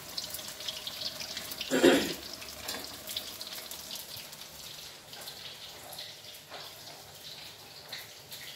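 Tempeh deep-frying in hot oil in a wok, a steady crackling sizzle, with a brief clatter about two seconds in.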